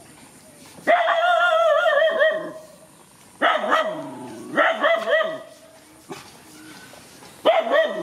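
A dog giving drawn-out, wavering barking cries. A long one comes about a second in, two shorter ones follow around four and five seconds, and another starts near the end.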